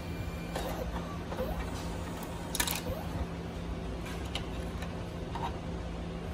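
Smart-51 PVC ID card printer finishing a print job, with mechanical clicks and a sharp click about two and a half seconds in as the printed card is fed out.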